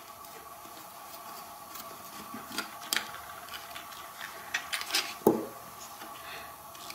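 Small scattered clicks and taps of a metal pick working against plastic and a circuit board as the board is pried off its two locating pins inside a car blend-door actuator housing, with a louder knock about five seconds in. A faint steady hum runs underneath.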